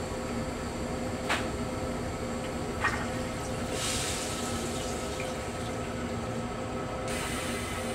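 Metro-North M3 railcar's stainless-steel chemical toilet flushing. Two sharp clicks come from the flush mechanism, then blue flushing fluid rushes into the bowl with a short hiss about four seconds in, and a second hiss starts near the end, all over a steady hum.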